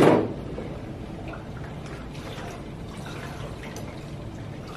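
The last syllable of a man's spoken phrase, then steady low room noise with a few faint light knocks.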